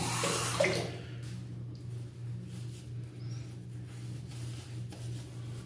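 Scratchy wet-shaving strokes against lathered stubble, strongest in the first second and fainter after, over a steady low hum.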